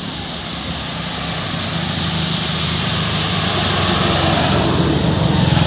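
A motor vehicle's engine approaching along the road, a low hum that grows steadily louder and is strongest near the end.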